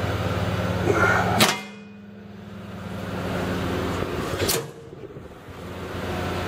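Two sharp metallic clanks about three seconds apart from the band saw's sheet-metal cabinet being handled, over a steady electrical hum.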